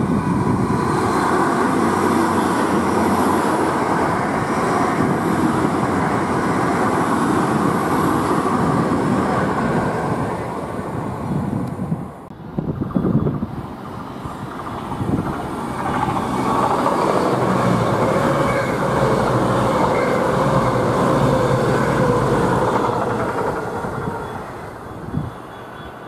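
Two trains running past on the main line. First a Great Western Class 800-series IET with its steady rumble of wheels on rail. After a sudden break, a CrossCountry Voyager diesel unit approaches, passes loudly and fades away near the end.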